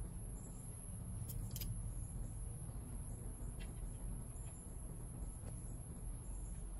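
Outdoor ambience: insects, crickets by the tags, keeping up a steady high-pitched trill over a low, constant rumble, with a couple of faint clicks about a second and a half in.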